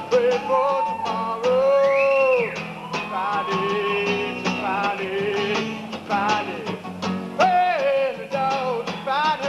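Recorded pop song with a singing voice and a steady drum beat. A held note slides upward about two seconds in.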